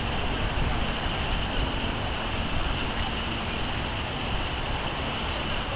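Wind buffeting the microphone, a heavy fluttering rumble over a steady outdoor background rush.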